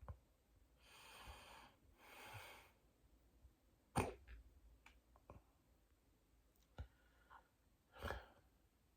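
A person hiccuping: short, sharp hiccups, the loudest about four seconds in and another about eight seconds in, with smaller ones between. Two slow breaths come in the first few seconds.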